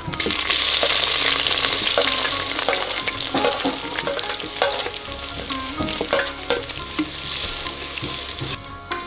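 Chopped onion and green chillies hitting hot oil in a clay pot, sizzling loudly at once, then frying more steadily. A wooden spatula stirs and scrapes against the pot throughout, and the sizzle drops away near the end.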